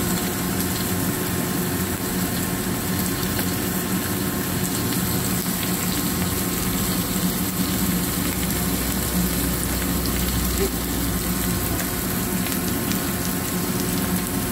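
Steady frying sizzle from a hot pan holding live lobster, onion and spring onion, with a steady low hum underneath.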